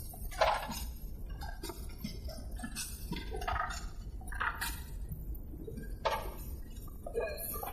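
Passenger boat engine droning low and steady inside the cabin, with several short knocks and clinks.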